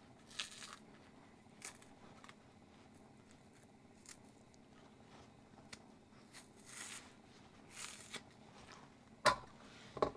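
Skin of a boiled green plantain being pulled off by hand: faint soft tearing and rubbing in short strokes, with a single sharp knock near the end.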